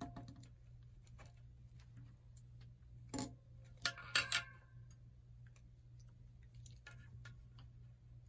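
Faint clicks and light metallic taps from a road bike's front rim-brake caliper and brake pad being shifted by hand, with a few louder clicks around three to four seconds in, over a steady low hum.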